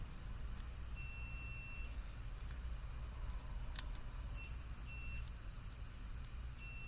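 Multimeter continuity beeper sounding as probes touch the ECU's MOSFET driver pins: one beep about a second long, two short beeps midway and another near the end, with faint probe clicks. The beeps signal continuity, here the short being traced across a cylinder-driver MOSFET.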